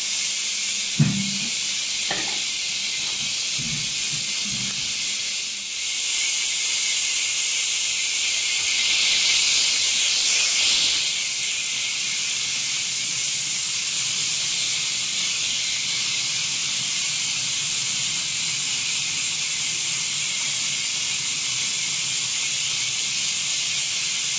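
Steady hiss of water running from a kitchen tap into a stainless steel sink while yams and sweet potatoes are rinsed and peeled under it. A sharp knock about a second in, with a few softer thuds after it.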